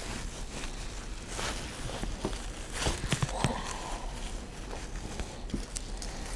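Hammock fabric rustling and swishing as it is pushed by hand into a stuff sack, with scattered light clicks and taps.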